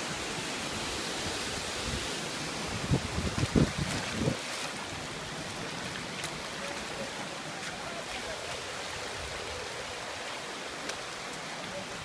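Steady rush of stream water running over rocks below a waterfall. A short cluster of low thumps comes about three to four seconds in.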